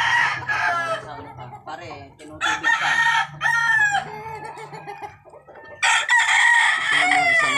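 Gamefowl roosters crowing: three long crows, one already under way at the start, one about two and a half seconds in and one about six seconds in.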